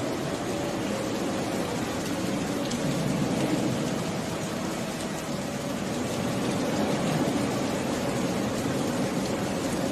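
Steady rain falling, an even wash of noise without breaks.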